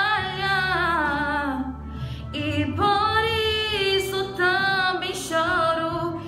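A young woman singing a Portuguese worship song into a handheld microphone, holding long notes with vibrato, with a short breath about two seconds in between two phrases.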